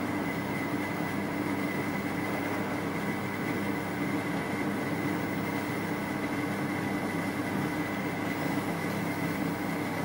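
Electric potter's wheel running at a steady speed, its motor giving a constant hum with a thin high whine.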